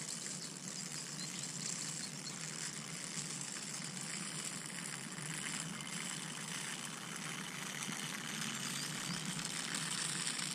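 Faint, steady outdoor background hiss across an open field, with no distinct events, growing slightly louder near the end.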